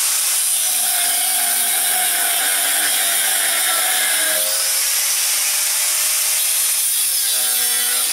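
Angle grinder with a thin cut-off disc cutting through 12 mm steel round bar: a steady, loud, high-pitched whine and hiss as the disc bites into the steel.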